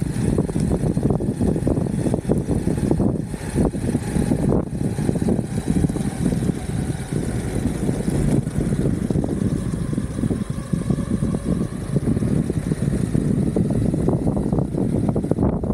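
Steady low rumble of an Exway Atlas Pro 4WD electric skateboard under way: its wheels rolling along with air rushing over the microphone, and no distinct events.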